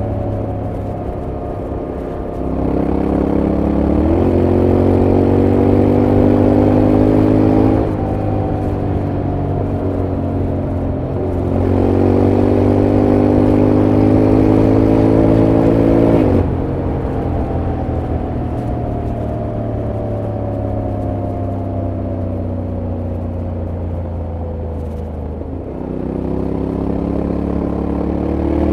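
Honda X-ADV 750's parallel-twin engine pulling hard and rolling off in turn, three times over. Its pitch climbs steadily for several seconds under throttle, drops sharply as the throttle closes, then sinks slowly while coasting. The final climb starts near the end.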